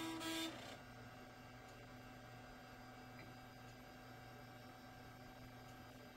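Steady low hum of a running late-1990s desktop PC: case fans and a spinning Quantum Fireball hard drive, which is a loud drive. A brief louder buzzy tone sounds in the first half second.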